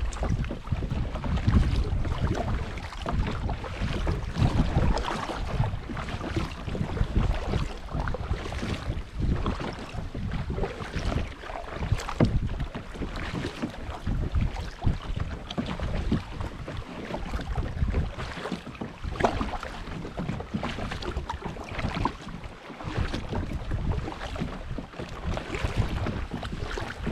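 Wind buffeting the microphone over water splashing and lapping around a kayak, with irregular small splashes and knocks throughout.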